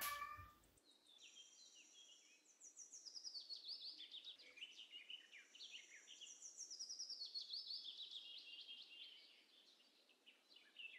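A small bird singing faintly in two long phrases of quick, high chirps and trills.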